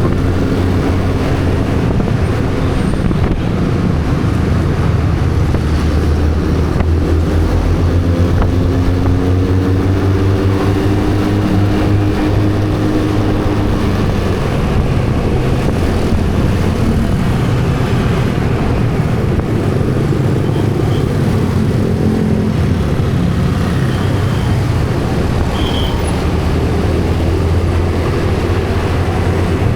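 Motor vehicle engine running steadily while on the move, its pitch drifting slowly up and down with speed, over constant road and wind noise.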